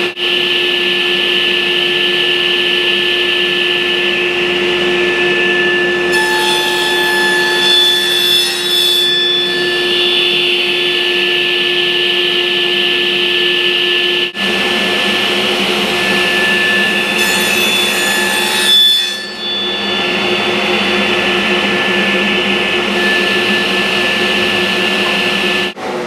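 Table saw with a dado blade running steadily, making two passes through the mitered corners of cherry picture frames to cut spline slots, about six and seventeen seconds in; each cut adds a higher whine over the running sound.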